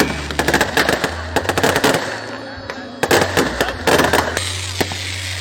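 Fireworks going off in quick irregular volleys of sharp bangs and crackles. The loudest cluster comes about three to four seconds in, over a steady low hum.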